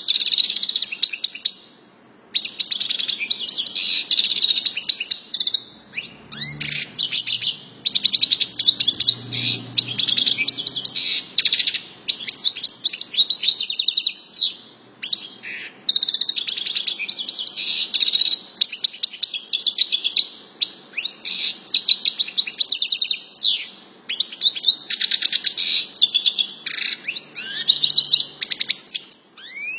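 Caged European goldfinch of the large 'major' form singing: long phrases of rapid twittering and trills, broken by short pauses every few seconds.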